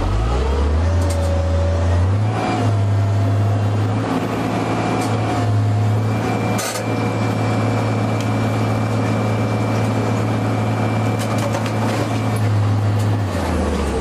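Excavator diesel engine and hydraulics running steadily under load, a low even hum, as the boom presses its attachment down into a cut in the marble. A single sharp knock comes about halfway through.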